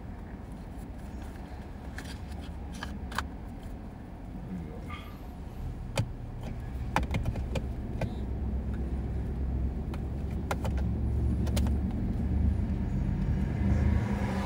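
Low rumble of a moving car heard from inside the cabin, growing louder from about halfway through, with a few sharp clicks scattered through it.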